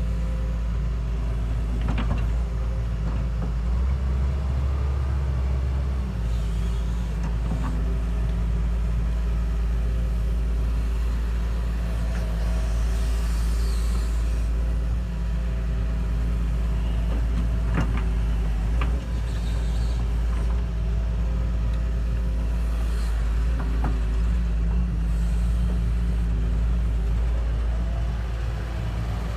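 Heavy machine's engine running steadily, with a few sharp knocks from the work now and then.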